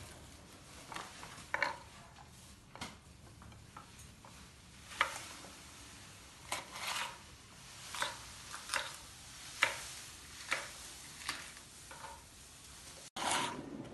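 Kitchen knife slicing a vegetable on a wooden chopping board: about a dozen sharp knocks of the blade meeting the board, at uneven intervals.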